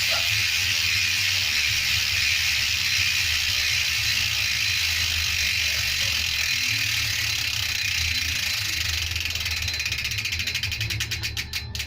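Upgraded bicycle rear hub freewheeling: a fast, steady ratchet buzz from the freehub pawls that breaks into separate clicks, slowing down over the last few seconds as the wheel coasts to a stop.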